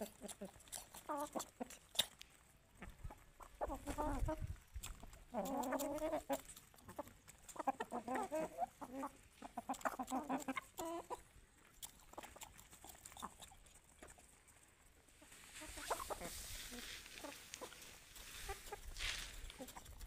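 Chickens clucking in short, repeated calls, over quick light ticks of an Asil rooster pecking grain from a palm. A rustling noise rises near the end.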